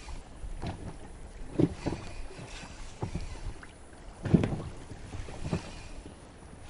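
Small wind-driven waves lapping and slapping in irregular splashes about once a second, the strongest about four and a half seconds in, with wind on the microphone.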